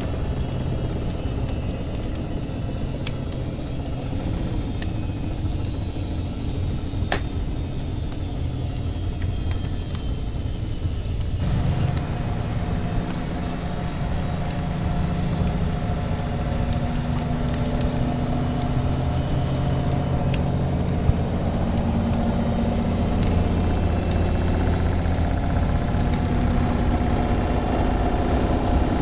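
Washing machine running with a steady low rumble and motor hum. About twelve seconds in, the hum changes abruptly to a new, steadier motor note. A few faint crackles from a wood fire sound over it.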